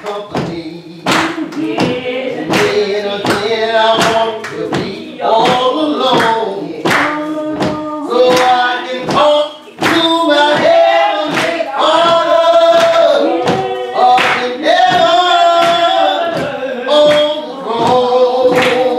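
Gospel singing in a church, voices holding long notes, with sharp beats keeping time about every three-quarters of a second.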